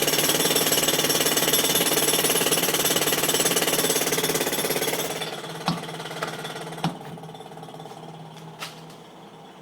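Pneumatic jackhammer breaking up a concrete sidewalk, heard through a shut window, rattling rapidly and loudly, then stopping about halfway through. After it stops come a few sharp knocks and a faint steady hum.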